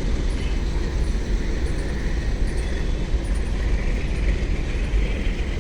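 WDG4G diesel-electric freight locomotive's engine humming: a deep, steady hum that keeps going without a break.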